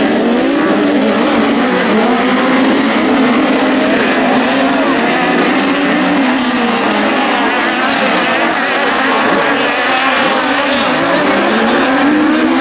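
Several 1600 cc sprint-class autocross buggies racing flat out together on dirt, their engines revving in overlapping notes that rise and fall as they accelerate and shift.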